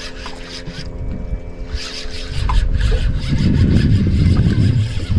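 Spinning reel being cranked in a quick run of rasping ticks as a big fish is fought on a bent rod. A louder low rumble swells from about two and a half seconds in.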